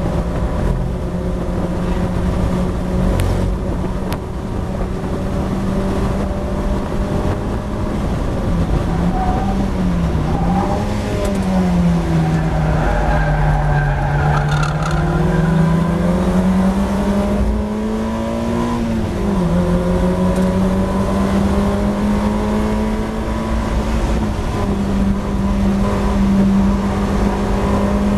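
Mazda MX-5 race car's four-cylinder engine at racing revs, heard from the cockpit. About ten seconds in it drops down the gears with throttle blips while braking for a slow corner, and the tyres squeal briefly through the bend. It then revs back up, shifts up once near twenty seconds, and pulls hard again.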